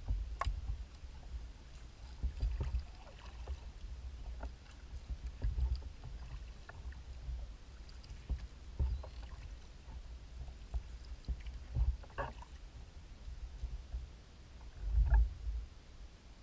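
Kayak moving on calm water: water lapping against the hull, with irregular low bumps and small splashes, the strongest about fifteen seconds in.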